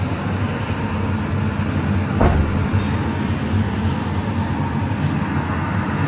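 Steady outdoor background rumble and hiss, with one soft knock about two seconds in.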